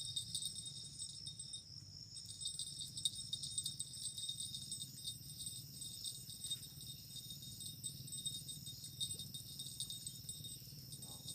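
Insects shrilling steadily in a chorus of several high, continuous pitches, over a low steady hum.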